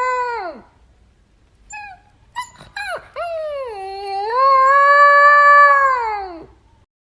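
A cat yowling: a long drawn-out call falls away in the first half-second, a few short broken calls come about two to three seconds in, and then another long yowl rises, holds and falls away near the end.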